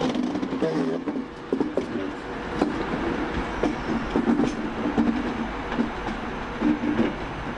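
Train at a station platform, running with a steady hum and a low rumble, with a few light clicks.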